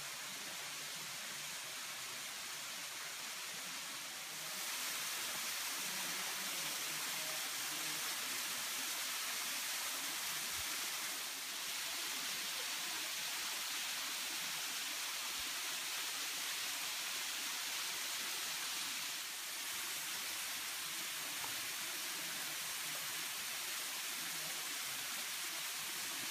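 Three-tiered waterfall falling onto rock and into a pool: a steady rushing hiss of water, a little louder after about four seconds in and shifting slightly in level a couple of times later.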